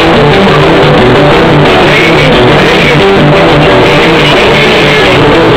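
Loud amplified band music from a trio elétrico sound truck, led by electric guitar and bass, held at a constant very high level.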